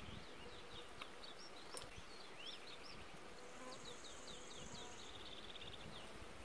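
Small birds chirping and singing in short, high notes and trills, with a high, dry buzzing trill about halfway through.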